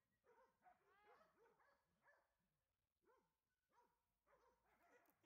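Dogs barking and yipping, faint, in quick repeated calls of a few a second.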